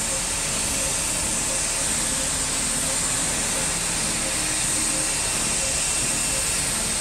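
Steady, unbroken hiss of city street and construction-site noise, with no distinct knock or event standing out.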